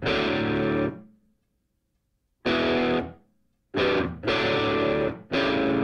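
Music: distorted electric guitar chords played in short stabs that stop dead, with silent gaps between them. From about two-thirds of the way in, the chords run on back to back.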